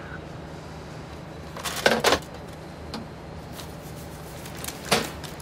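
A payphone handset being hung up on its metal hook: a quick clatter of knocks and clicks about two seconds in, then a single sharp knock near the end, over a steady low hum.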